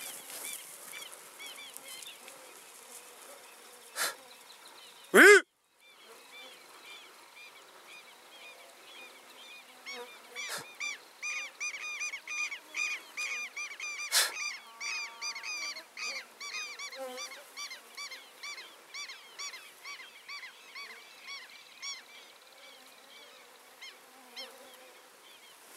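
Birds calling again and again, short arched calls about two a second, starting about ten seconds in and thinning out near the end. About five seconds in there is one loud short cry, with a few sharp knocks around it.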